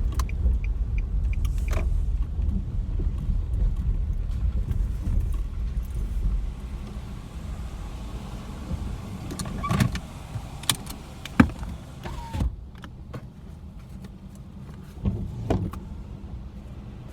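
Inside a car: low road and engine rumble with a faint indicator ticking at first, fading as the car slows and stops about six seconds in. Then several sharp clicks and knocks in the quiet cabin, such as a gear lever, seatbelt or keys.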